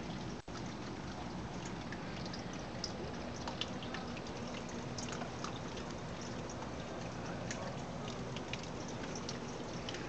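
Mirrored water fountain running: thin streams of water falling down the mirror face into its trough, a steady trickle and splash with scattered droplet ticks.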